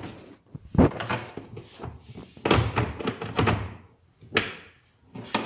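Knocks and clunks of a kitchen cabinet door being handled and fitted back onto the carcass on its new self-closing hinges. The sharpest knock comes about a second in, with a cluster of knocks and rattles a couple of seconds later and another knock near the end.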